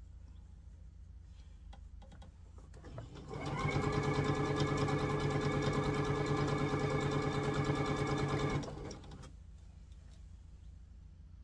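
Electric home sewing machine stitching a seam: it speeds up about three seconds in, runs steadily at a fast even stitch for about five seconds, then stops.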